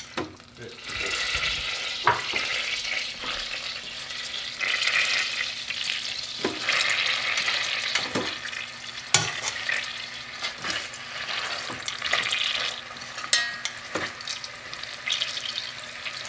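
Beef short ribs sizzling as they sear in melted butter in an Instant Pot's stainless steel inner pot on the sauté setting. The sizzle comes up about a second in, with a few sharp clicks of metal tongs against the pot.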